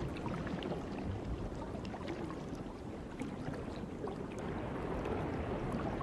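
Soft underwater ambience: a low, steady watery rush with scattered faint clicks.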